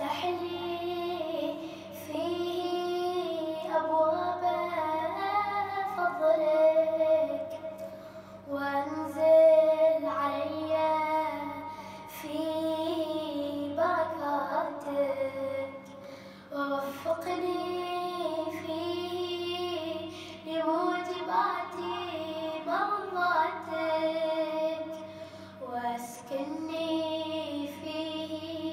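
A boy's voice chanting an Arabic Ramadan supplication (du'a) melodically into a microphone, in long drawn-out phrases with short pauses between them.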